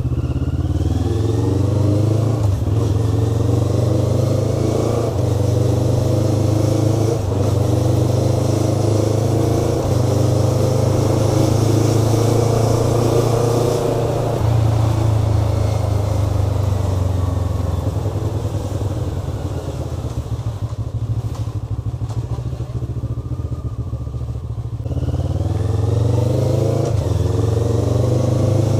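Motorcycle engine running on the move, its pitch stepping at gear changes. The engine eases off to a quieter, rougher note for several seconds past the middle, then pulls hard again near the end.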